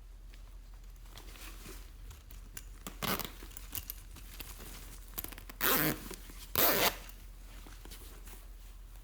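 Slime being handled by hand, with faint crackling and three short loud rasps: one about three seconds in and two close together around six seconds.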